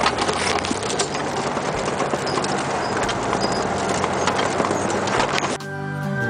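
Military vehicle driving across snowy ground: engine running under steady wind and road noise, with frequent knocks and rattles. Near the end it cuts off abruptly and background music begins.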